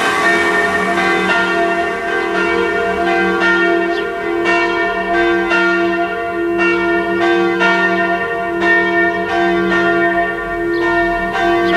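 Church bells ringing together in a continuous peal, with fresh strokes coming about twice a second over a steady, overlapping ring.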